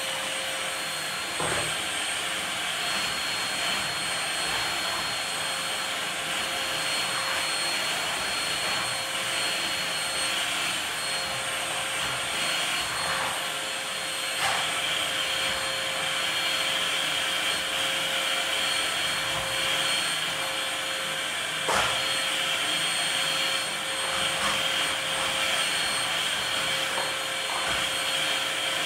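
Vacuum cleaner motor running steadily with a constant whine, broken by a few sharp knocks, the loudest about three-quarters of the way in.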